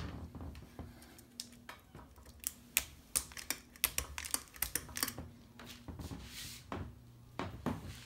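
Hunter Sea Air ceiling fan running on medium with a faint, steady low motor hum. Over it comes a scatter of irregular sharp clicks and taps, which are the loudest sounds.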